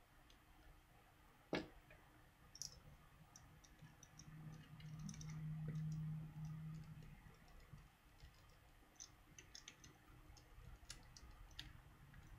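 Small sharp clicks and ticks of a phone's plastic casing and parts being worked with a screwdriver and pry tool, with one louder click about a second and a half in. A low steady hum runs for about three seconds in the middle.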